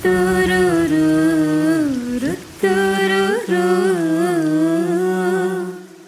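A voice humming a wordless melody in several phrases, with a lower note held beneath it; it fades out near the end.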